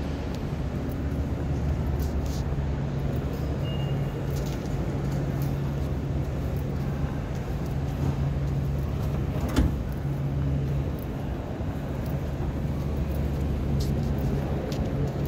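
Steady low rumble and hum of an underground metro station, with a single sharp knock about two-thirds of the way through.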